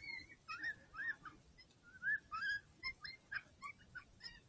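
Faint, high whimpering yelps: many short canine-like distress calls that bend up and down in pitch.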